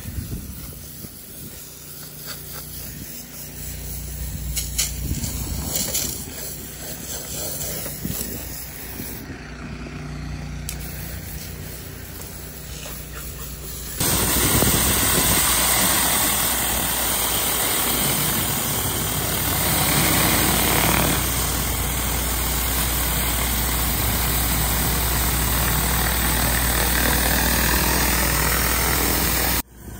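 A pressure washer's engine running steadily with the hiss of a soft-wash spray wetting a rock. About halfway through there is an abrupt change to a louder, even rush of a rotary surface cleaner spraying and scrubbing concrete over the engine hum.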